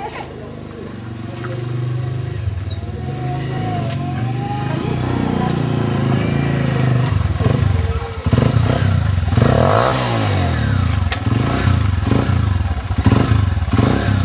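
Motorcycle engine running and revving, its pitch rising and falling repeatedly with the throttle.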